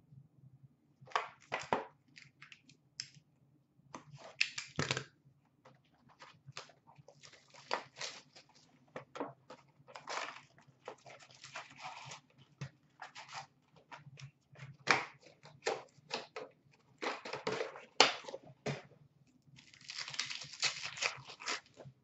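Foil hockey card pack wrappers (O-Pee-Chee Platinum) being torn open and crinkled in the hands, in short irregular rustles and rips, with a longer stretch of crinkling near the end. A faint low hum runs underneath.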